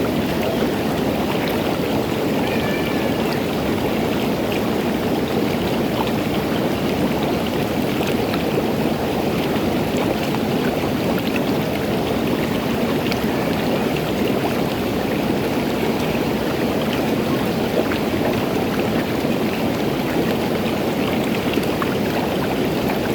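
Water bubbling steadily in a pool, a dense even churn with small pops and ticks scattered through it.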